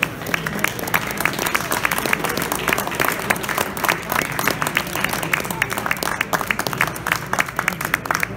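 Audience applauding: a dense run of hand claps from a crowd.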